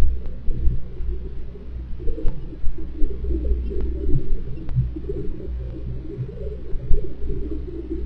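Wind noise picked up by a home security camera's microphone: a low, gusty rumble that swells and fades, with a few faint clicks.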